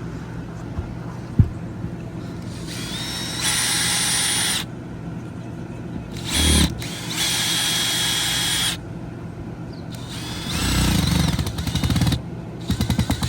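Power drill run in three bursts of a second or more each, the motor whine rising in pitch as it spins up, as when driving or backing out screws. There is a short knock shortly before the first run.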